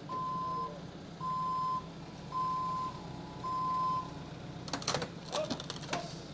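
Excavator's reversing/travel alarm beeping four times, about one beep a second, over the steady running of its engine. A few sharp clanks follow near the end.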